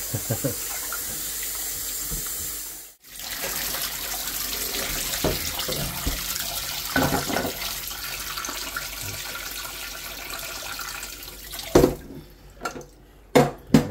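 Kitchen faucet running into a stainless steel stockpot as beef tripe is rinsed by hand, water splashing over the pieces. The tap stops about twelve seconds in, followed by a few sharp knocks and splashes as the pot is drained.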